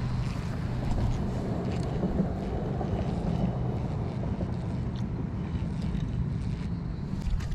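Steady low motor hum, with wind noise on the microphone.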